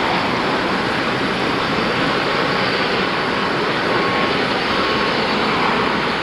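Steady, loud rushing noise of jet aircraft on an airport apron, even throughout, with a faint thin whine in it.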